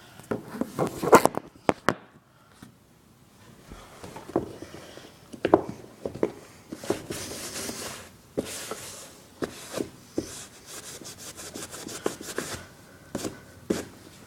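Wet magic eraser scrubbing sneaker leather: irregular rubbing strokes with light clicks and knocks of the shoe being handled.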